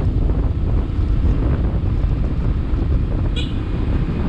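Wind buffeting the microphone of a GoPro on a moving motorbike: a loud, steady low rumble. A brief high chirp cuts through about three seconds in.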